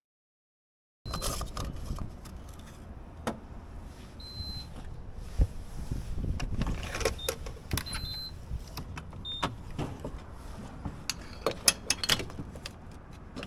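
Inside a car: a steady low rumble with many clicks and knocks, and a few short high beeps.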